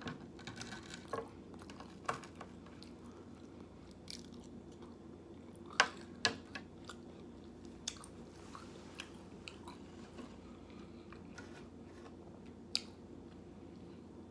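Close-miked chewing and biting of food, with soft wet mouth clicks scattered throughout. There are a few sharper clicks a little before halfway and near the end, over a faint steady low hum.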